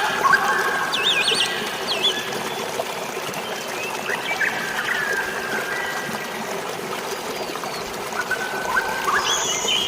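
Water trickling and splashing steadily, with songbirds singing over it: quick warbling phrases in the first two seconds, scattered whistled notes, and more song near the end.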